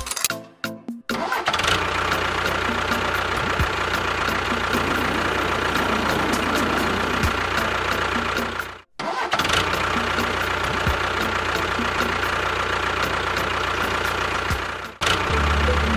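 A motor or engine running steadily, with a steady whine over a noisy hum. It cuts out briefly about halfway through and then runs on in a second stretch before giving way to music near the end.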